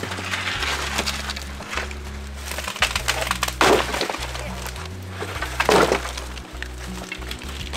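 Dry mimosa trunks and branches being dragged and dropped onto a pile, cracking and snapping, with two loud wooden crashes about three and a half and six seconds in. Background music with a steady bass line plays throughout.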